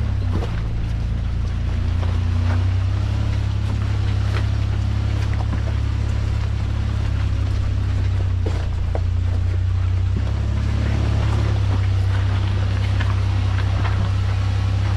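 Toyota Land Cruiser's engine running as the truck crawls slowly over a rocky trail: a steady low drone with occasional short knocks as the tyres go over rocks.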